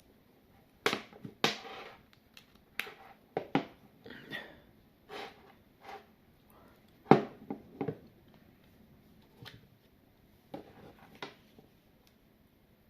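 Irregular clicks and light knocks of a small plastic device being handled, about a dozen in all, the loudest about seven seconds in.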